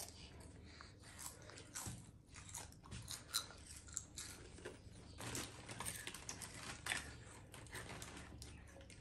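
Children chewing and crunching crisps: a scatter of short, faint, irregular crunches.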